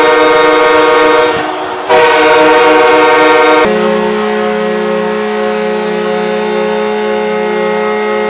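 NHL arena goal horns, ship-style air horns: one blast fades out about a second in and a second blast of the same pitch sounds for about two seconds, then a lower-pitched horn holds steady for about five seconds.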